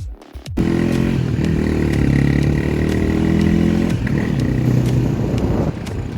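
Honda Tornado 250 single-cylinder four-stroke motorcycle engine catching after a brief crank about half a second in. It then runs with some throttle, the revs easing and picking up again near the end.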